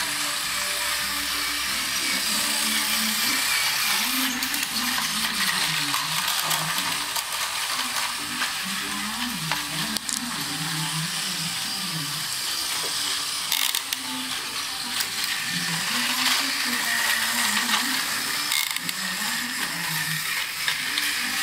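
Battery-powered Tomy Plarail toy trains running on plastic track: a steady whir of small gear motors with scattered clicks and clatter of wheels over the track joints.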